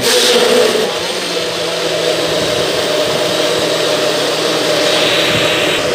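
NutriBullet personal blender motor switching on suddenly and running steadily at full speed, chopping cucumber slices and water into a green purée.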